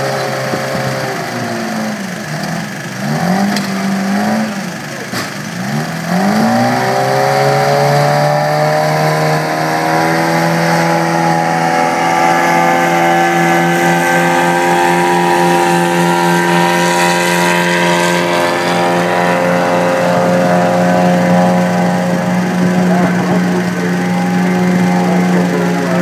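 A large wheel loader's diesel engine running hard close by. Its pitch dips and rises a few times during the first six seconds, then holds steady and loud.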